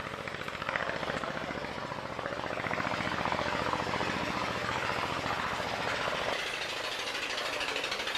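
An engine running with a rapid, pulsing beat. Its low rumble drops away about six seconds in, while the faster pulsing carries on.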